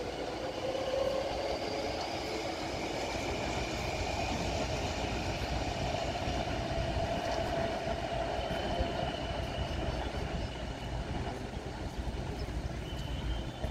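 Taipei Metro electric train running along the track, a steady rumble of wheels on rails with drawn-out whining tones that drift slowly in pitch as it pulls away.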